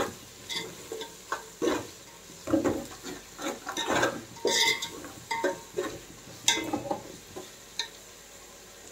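Metal slotted spatula stirring a wet mixture of onions and herbs in a large metal pot, scraping and knocking against the pot's sides and bottom in short uneven strokes, one or two a second. The strokes stop shortly before the end, when the spatula is left resting in the pot.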